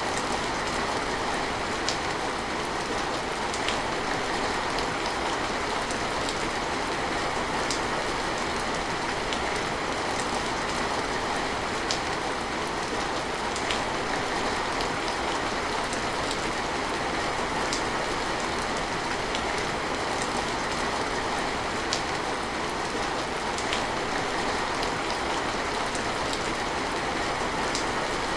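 Steady rain falling, an even hiss with now and then a sharper drip.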